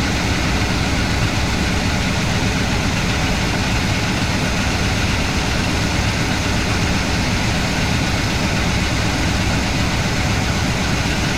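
Engine of an International Harvester wrecker truck running steadily at idle, loud and close up. The owner thinks it has a miss.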